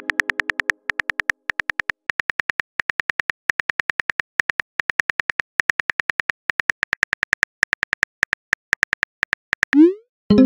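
Phone keyboard typing clicks from a texting-story app, a rapid run of crisp ticks about ten a second in short runs, as a message is typed out. Near the end a short rising swoosh sounds as the message is sent.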